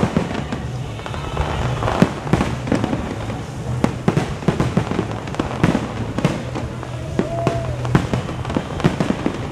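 Fireworks display: many sharp bangs and crackles from bursting shells in quick succession, with a short whistle about three-quarters of the way through.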